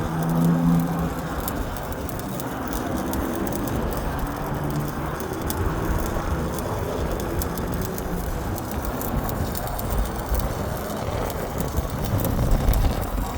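Strong wind buffeting the microphone, a steady rushing with gusty low rumble and crackle.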